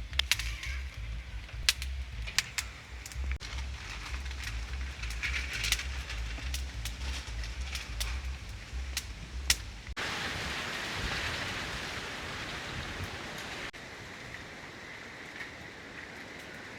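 Wood fire crackling with irregular sharp pops over a low rumble. About ten seconds in it cuts to a steady hiss of rain.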